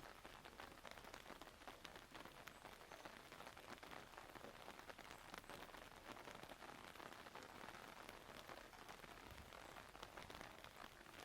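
Faint, steady rainfall, with many small drops ticking close by.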